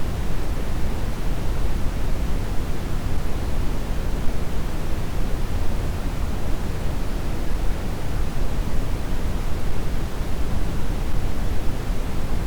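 Steady brown noise: a constant deep hiss and rumble, heaviest in the low end, with no changes, used for sleep and tinnitus masking.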